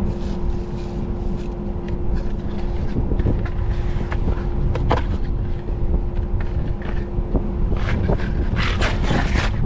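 Heatmaster G7000 outdoor wood furnace's draft fan running with a steady hum, heavy wind rumble on the microphone, and scattered clicks and crackles that thicken near the end.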